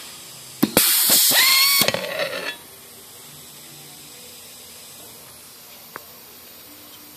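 Pneumatic-hydraulic spin-pull rivet nut tool cycling as it sets an aluminium rivet nut into a sheet-metal plate: a loud burst of air hiss with a rising whine from the air motor, starting about a second in and tailing off after about two seconds. A single small click comes near the end.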